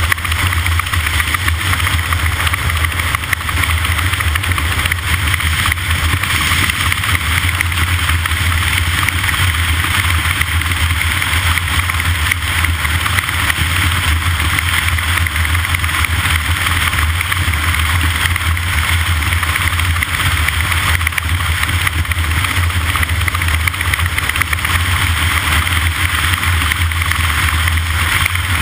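A steady low engine drone under a constant hiss, with no change in pitch or level.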